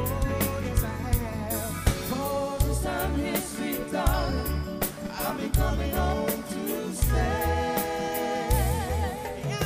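A live soul band playing, with singers holding long wavering notes over bass and drums, and backing vocalists joining in.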